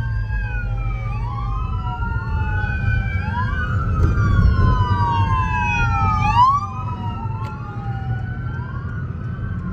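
Several police sirens wailing at once, their overlapping pitches sweeping up and down, with a quick run of fast rising yelps about six seconds in.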